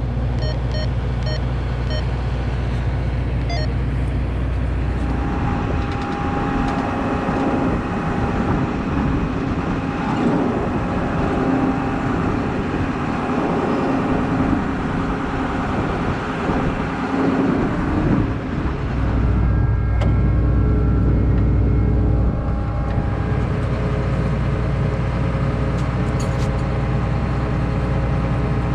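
A vehicle running and driving along, a steady low engine and road noise, with a series of short high beeps in the first few seconds.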